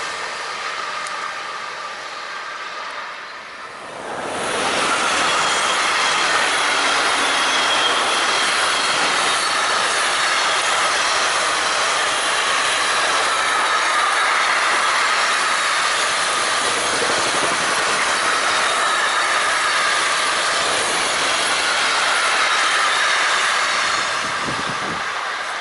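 Freight train of container wagons rolling past close by, a steady loud wheel-on-rail noise with faint wavering high squeal tones. It comes in about four seconds in, after the fading sound of a tank-wagon train going away.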